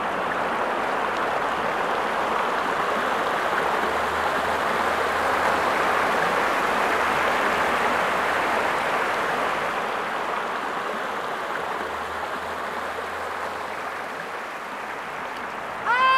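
Shallow creek rushing over rocks: a steady wash of running water that eases slightly in the second half.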